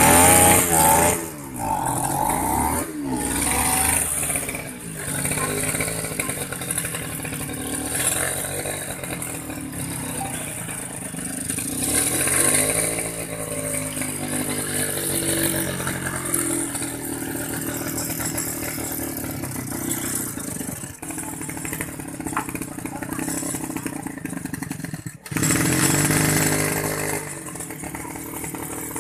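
Backpack brush cutter's small petrol engine running after being rebuilt, its speed rising and falling again and again as the throttle and carburettor are worked.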